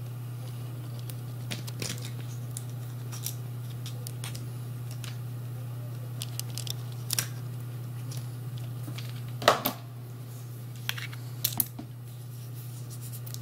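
Small metal clicks and scrapes as a thin metal tool works a threaded retaining ring out of the end of a metal dosimeter pen body, with a few sharper clicks about nine and a half and eleven and a half seconds in. A steady low hum sits underneath.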